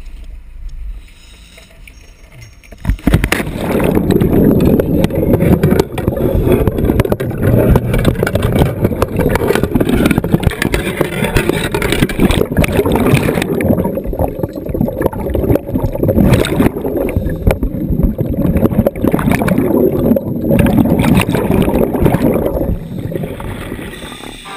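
A diver jumping off the boat into the sea about three seconds in, then a long stretch of loud churning bubbles and rushing water against the camera underwater, easing off near the end.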